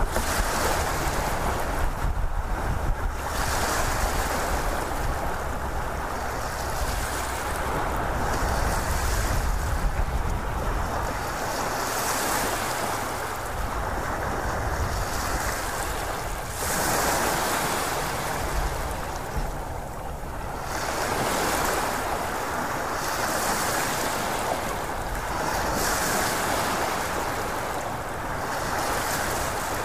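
Ocean surf: a rushing wash of waves that swells and recedes every few seconds, with a low rumble under it in the first part.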